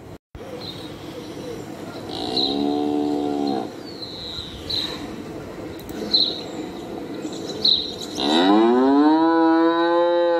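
Cattle mooing. A short, steady moo comes about two seconds in, and a longer moo near the end rises in pitch, then is held until it cuts off. Several short high chirps sound between the two moos.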